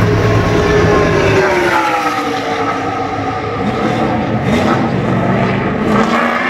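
V8 engine of a NASCAR Cup Chevrolet Camaro running loud as the car pulls away down pit road. The deep rumble drops away after about a second and a half, and the engine's pitch dips and then climbs again.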